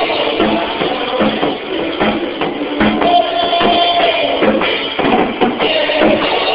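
Drum kit played live, with cymbals and bass drum keeping the beat, against sustained pitched instruments of a band playing a contemporary Christian song.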